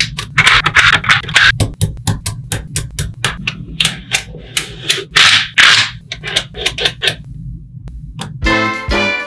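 Small magnetic balls clicking and snapping together, with rapid irregular clicks and bursts of rattling as they are handled and pulled apart. Swing-style brass music comes in near the end.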